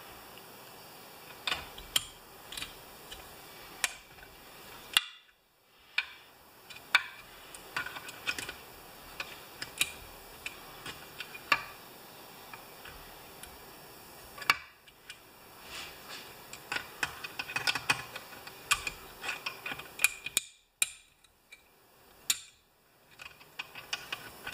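Irregular small metallic clicks and taps of needle-nose pliers and small parts being worked inside a chainsaw's flywheel and points housing.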